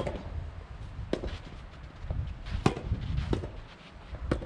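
Soft tennis racket strokes hitting the rubber ball during a rally: five sharp hits, irregularly spaced about one to one and a half seconds apart. Strong wind buffets the microphone with a low rumble throughout.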